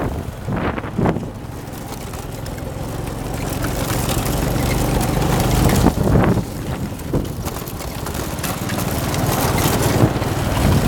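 Go-kart's small engine running as it drives over rough ground, getting louder over the first few seconds, with wind buffeting the microphone.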